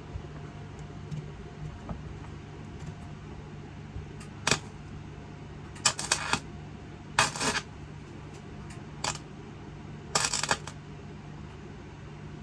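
Welding arc struck in short tacks: four or five brief bursts, each under half a second, over a steady electrical hum.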